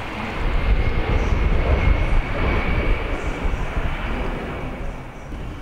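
Fairchild Republic A-10 Thunderbolt II's twin General Electric TF34 turbofans in a display pass: a steady rushing jet noise with a thin high whine on top. It grows louder about half a second in and eases slightly near the end.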